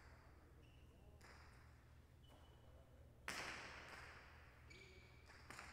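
Jai alai pelota striking the court wall with one loud sharp crack about three seconds in, ringing and echoing through the large court as it fades. There are a few faint taps before it and a short click near the end, over a low steady hum.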